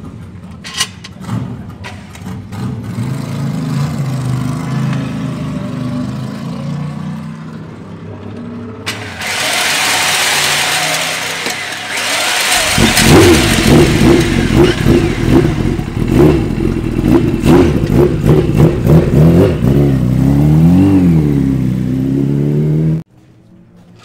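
Air-cooled four-cylinder Kawasaki classic racing superbike being started: a starter whirs for a few seconds, then the engine catches about twelve seconds in and runs loud and rough, blipped up and down a few times near the end before it cuts off suddenly.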